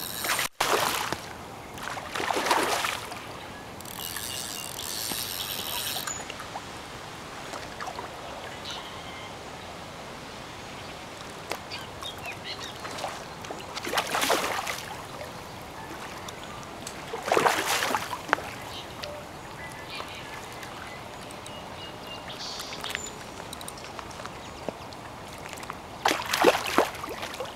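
Water splashing in the shallows at the bank as an animal moves and breaks the surface: four separate splashes, the loudest near the end.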